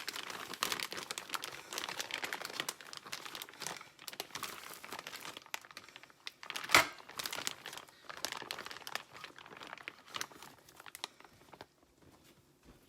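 Crinkling and crackling of wrapping being handled, with one sharp snap about seven seconds in. It stops about a second before the end.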